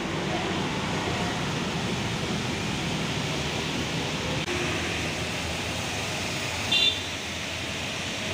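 Steady hiss and rumble of road traffic on a wet road: buses and cars moving past. About seven seconds in comes one short, shrill toot.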